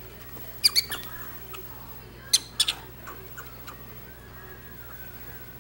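Prairie dogs giving short, sharp, high-pitched squeaks in two quick clusters of three, about a second in and again about two and a half seconds in.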